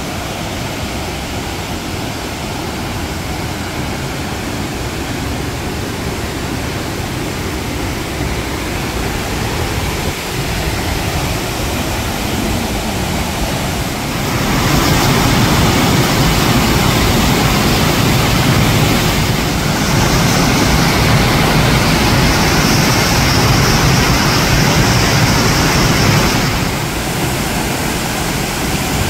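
Waterfall plunging into a rocky pool: a steady rush of falling water. It grows louder about halfway through and drops back again near the end.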